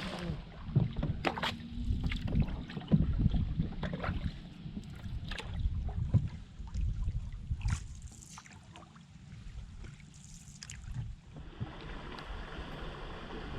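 Canoe on the water: scattered knocks and splashes of paddle against hull and water, over a low wind rumble on the microphone.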